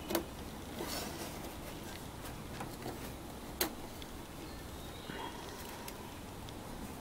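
A few sharp clicks and soft rubbing as a painted metal tail light housing is worked loose from its rubber gasket by hand. The sharpest click comes just after the start and another about three and a half seconds in, over a steady low hiss.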